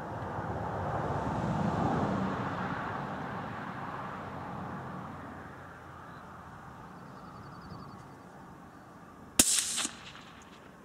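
A single shot from a CZ rifle in .17 HMR, a sharp crack with a short ringing tail, about nine seconds in. Before it, a swell of rushing noise rises and fades.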